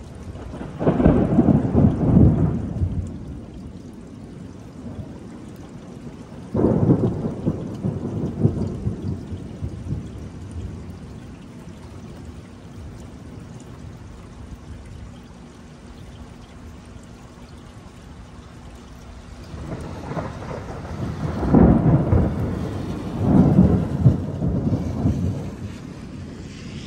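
Thunder rumbling four times over steady rain. There is one roll about a second in, another a few seconds later, and two close together near the end.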